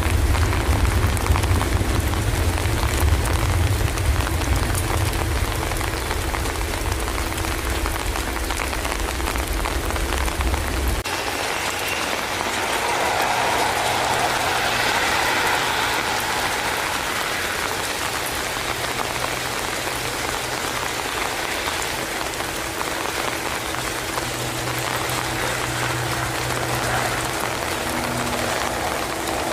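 Heavy rain falling steadily on the airfield. For the first eleven seconds a deep rumble from a Boeing 737-800's jet engines at takeoff power runs under the rain, then stops suddenly; after that a fainter steady drone from an ATR 72-600 turboprop's engines and propellers is heard as it lines up and rolls for takeoff on the wet runway.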